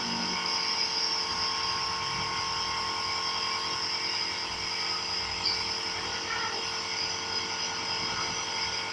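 Nebulizer compressor running with a steady electric hum.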